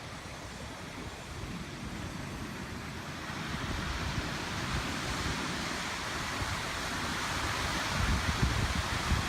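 Sea surf washing ashore, a steady hiss that slowly swells from about three seconds in. Wind buffets the microphone with low rumbles, strongest near the end.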